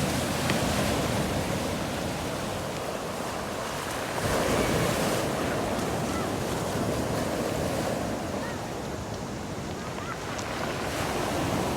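Sea waves washing onto the shore, swelling louder about four seconds in, with wind buffeting the microphone.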